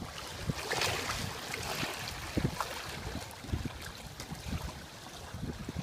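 Water rushing and splashing along the hull of a sailboat under way, with irregular low thumps of wind on the microphone. A louder hissing surge comes about a second in.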